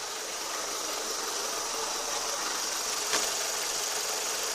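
Renault Mégane II engine idling with the clutch pedal released, carrying an extra noise that appeared after the clutch was replaced. The noise goes away when the pedal is pressed, and the owner suspects a loosely bolted clutch pressure plate or something bedding in.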